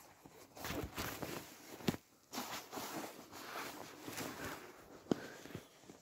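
Close rustling and shuffling from handling and moving about, with two sharp knocks about two and five seconds in.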